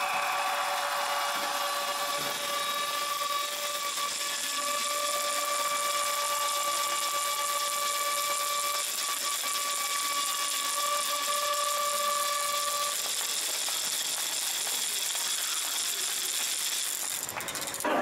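Ice rink's electric game horn sounding one long steady tone as the game clock runs out, stopping about thirteen seconds in, over a constant hiss.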